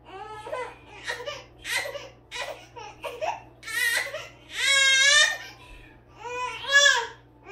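A high-pitched voice whining and crying out, first in a string of short cries, then in a longer wavering wail about five seconds in and another loud one near the end.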